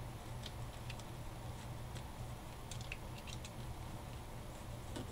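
Mechanical pencil tracing around a paper template on cardboard: a few faint scattered ticks and scratches over a low steady hum.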